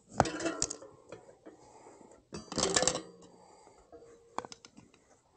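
Tire lever and screwdriver clinking and scraping against a bicycle wheel rim as the tire bead is pried off, in two short clattering bursts with light clicks in between and after.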